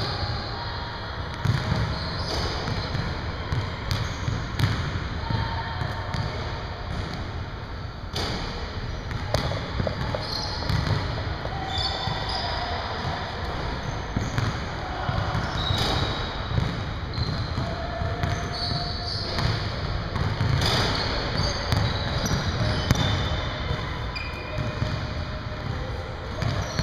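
Basketballs bouncing and thudding on a hardwood gym floor, with short high sneaker squeaks scattered throughout.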